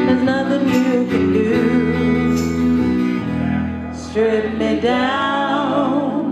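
Live band playing a slow song: acoustic guitar strumming with a steady low line underneath, and a woman singing a long wavering note from about four seconds in.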